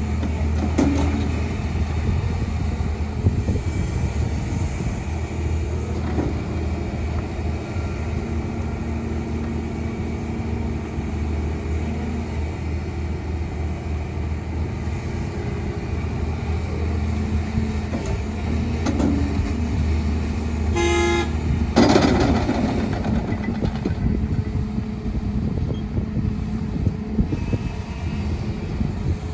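Heavy diesel engines of an excavator and dump truck running steadily under load. About two-thirds through, a short vehicle horn toot sounds, followed by a brief louder surge of engine and machine noise.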